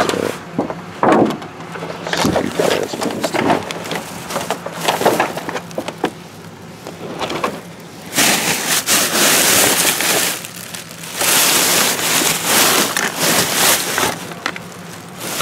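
Plastic trash bags crinkling and rustling as they are handled and pulled apart by hand. Scattered rustles and knocks come first, then two long stretches of loud, continuous crinkling in the second half.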